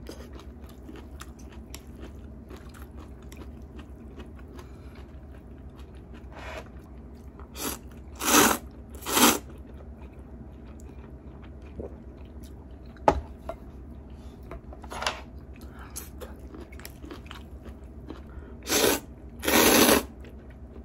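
A person slurping spaghetti eaten with chopsticks. There are two pairs of loud slurps, the first pair about eight seconds in and the second near the end, with quieter chewing between. There is a single sharp click about 13 seconds in.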